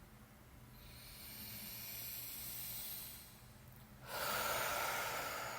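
A person breathing close to the microphone: a long breath in, then a louder heavy breath out, a weary sigh.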